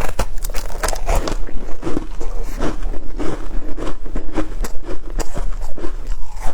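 Shaved ice being bitten and chewed: a fast, irregular run of crisp crunches.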